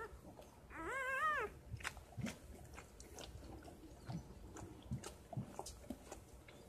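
Newborn puppy giving one short high whine about a second in, then the mother dog licking and nuzzling it: soft wet clicks and smacks.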